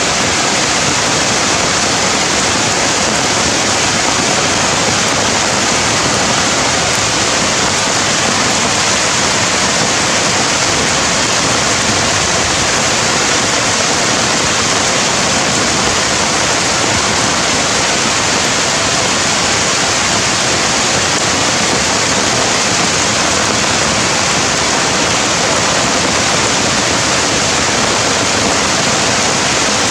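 A steady, loud rushing hiss that never changes, with no breaks and no calls in it.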